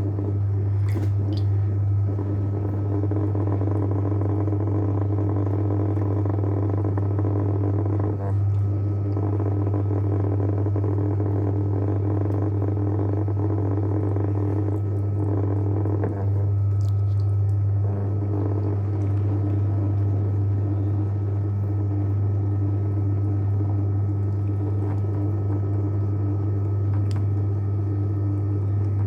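JW Ratcliffe and Sons electric pottery wheel running with a steady low motor hum while porcelain clay is being centred on it, the hum dipping briefly about eight seconds in and again near the middle.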